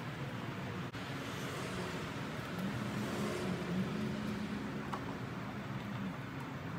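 A low engine hum, steady, with a brief dip and return in pitch about three seconds in, over a steady outdoor hiss.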